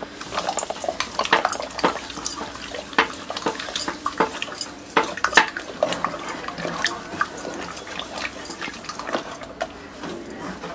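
Hand masher churning soft cooked dal and tomatoes in a pressure cooker pot: irregular wet squelching with sharp knocks of the masher against the pot.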